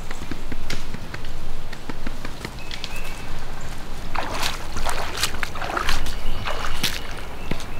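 Footsteps through grass and leaf litter, then, from about four seconds in, a person wading through creek water: repeated splashing and sloshing with each stride.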